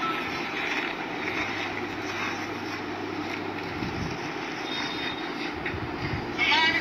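Steady outdoor background rumble with faint voices. Near the end a loud, drawn-out call held on one pitch begins.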